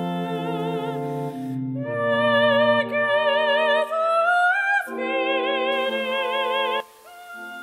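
Background music: a slow melody sung in long held notes with vibrato over sustained chords, dropping away near the end.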